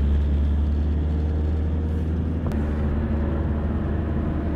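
Steady low rumble of a car driving, engine and road noise heard from inside the cabin, with a faint tick about two and a half seconds in.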